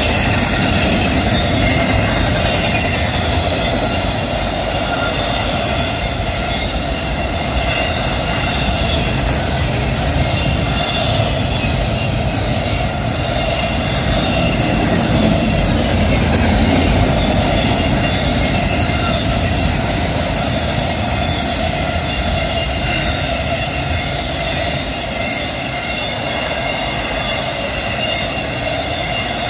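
CSX double-stack intermodal freight cars rolling past at steady speed: a continuous rumble of wheels on rail, with steady high ringing tones over it.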